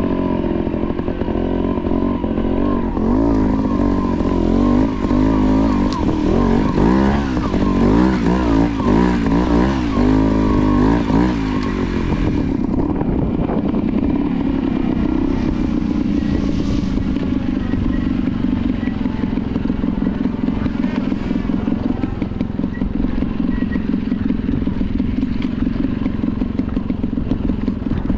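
Beta trials motorcycle engine working over loose rocks, its pitch rising and falling with repeated quick throttle blips for about the first twelve seconds, then running steadier and more evenly.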